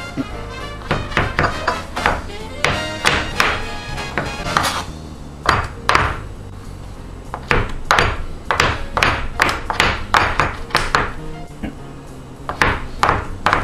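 A large kitchen knife chopping cooked chicken breast on a plastic cutting board: runs of quick, uneven knocks with short pauses between them. Background music plays underneath.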